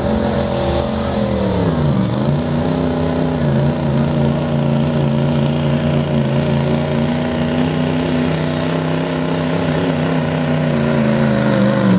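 Turbocharged diesel pickup truck at full throttle, pulling a weight-transfer sled. The engine runs at high revs with a high whine above it, dips in pitch about two seconds in, then holds steady.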